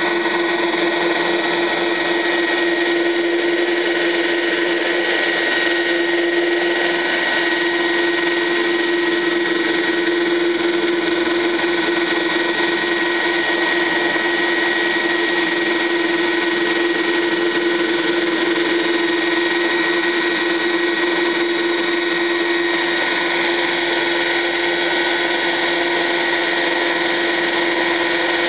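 Helicopter turbine engine and rotor running steadily on the ground: a constant high turbine whine over a steady lower hum, with no change in pitch or level.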